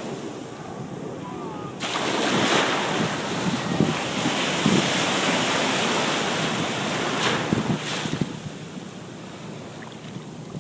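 Ocean surf washing on the beach with wind buffeting the microphone. The rush of noise swells a couple of seconds in and eases off again near the end.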